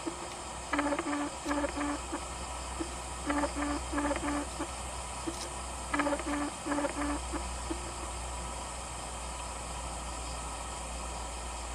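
Steady low drone of a palm-oil mill's machinery, heard from far off. Over it, a pitched call of about four quick notes repeats several times, then stops after about seven seconds.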